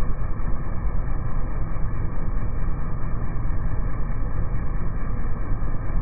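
Outdoor air conditioner condenser unit running, its fan blowing air up through the top grille: a loud, steady low drone.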